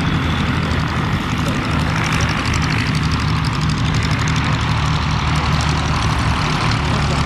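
Small single-engine light aircraft's propeller engine running steadily at low power as the plane taxies on grass.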